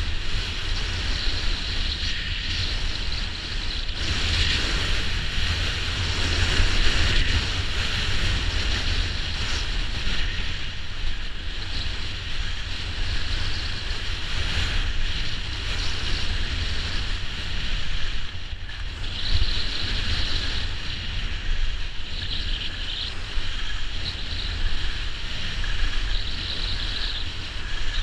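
Wind rushing over a GoPro's microphone during a downhill ski run, with a low rumble, and skis hissing and scraping over packed snow. The rushing swells and eases a little.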